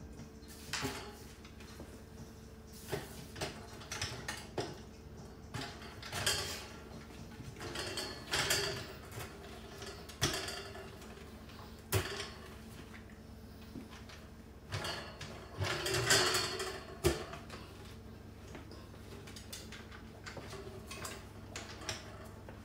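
Scattered clicks, knocks and short scrapes and rattles of a metal cart frame and its parts being handled and fitted together during assembly, with a longer rattling scrape about two-thirds of the way through.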